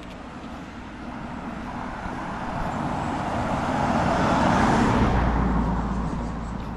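A road vehicle passes by, its engine and tyre noise swelling to a peak about four to five seconds in and then fading away.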